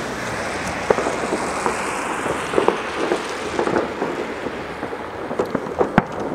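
Fireworks going off across a city: irregular pops and bangs over a steady noisy hiss, with a sharp bang near the end.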